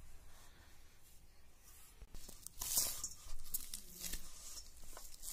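Hand kneading a soft maida flour dough in a steel bowl: irregular soft tearing and squishing crackles of the dough being pressed and folded, faint at first and louder from about two seconds in.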